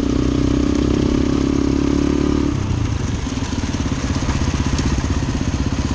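Suzuki DR-Z400's single-cylinder four-stroke engine running while the bike is ridden, heard from a camera mounted on the motorcycle. About two and a half seconds in, the engine note drops as the throttle eases, and it runs on at a lower, pulsing beat.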